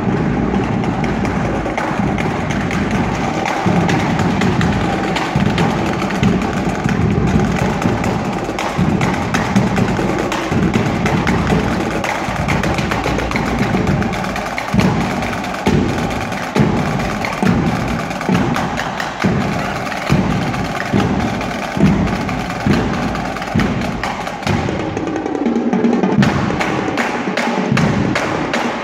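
Marching drumline of snare and bass drums playing a cadence: fast snare rolls and stick work, with steady, evenly spaced bass drum beats through the middle of the passage.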